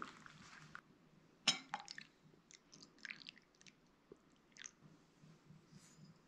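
Faint sound of tea pouring into a china cup, stopping just under a second in, then one sharp porcelain clink about a second and a half in. Scattered faint small clinks and splashes follow as milk is poured into the tea.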